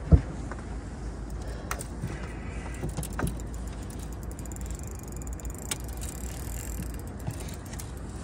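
Fishing reel clicking and winding as a strong catfish is played on the line, over a steady low rumble. A single sharp knock comes right at the start.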